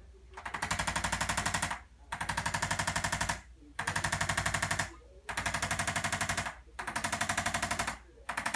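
Handheld percussive chiropractic adjusting instrument tapping rapidly on the low back, roughly a dozen strikes a second. It runs in about five bursts of just over a second each, with short pauses between.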